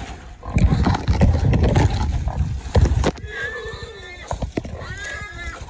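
Loud close rustling through palmetto brush and panting, then a wild hog caught by the dogs squealing twice, two drawn-out squeals of about a second each that rise and fall in pitch.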